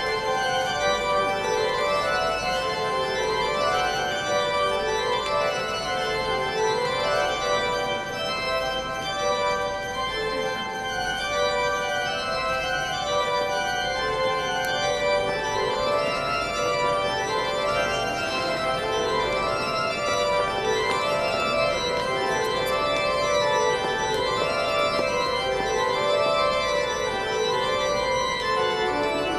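Pipe organ playing a full chordal piece, held notes under a moving melody, as recessional music while a ceremonial procession walks out.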